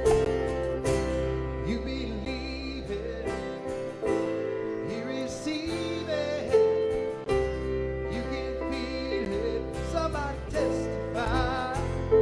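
Music: a slow song, a voice singing with vibrato over strummed guitar accompaniment.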